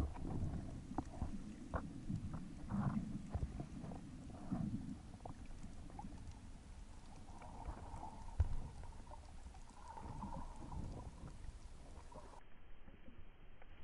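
Underwater sound picked up by a diver's camera in shallow rocky water: low rumbling water movement with scattered clicks and crackles, and one sharp knock a little past eight seconds in.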